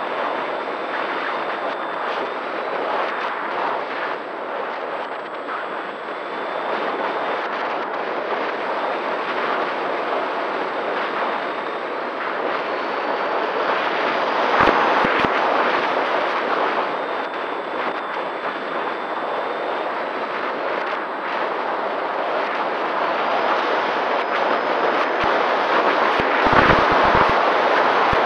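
Wind rushing over the onboard camera of an electric RC flying wing in flight, with a faint steady whine from its motor and propeller. The wind swells and buffets the microphone with low thumps about halfway through and again near the end.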